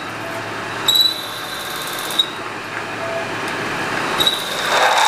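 Milling machine drilling into a cast aluminum bracket: a steady running and cutting noise with a high-pitched squeal that comes and goes several times, and a few sharp clicks.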